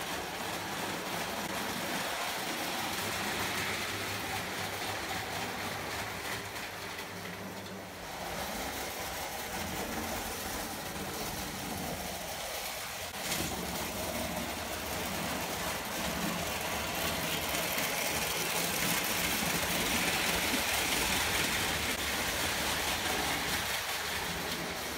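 Prewar Lionel O gauge tinplate trains running on three-rail track: a steady rattle and rumble of wheels with an electric motor's hum. The low hum drops out about eight seconds in, there is a single sharp click near the middle, and the running grows a little louder later on.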